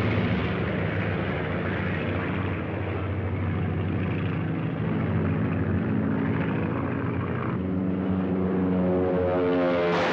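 Biplane propeller engines droning steadily, growing louder near the end as a plane closes in.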